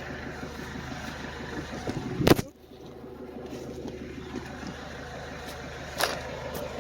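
An engine running steadily with a low hum. About two seconds in there is a loud knock, after which the sound drops quieter, and two sharp clicks come later.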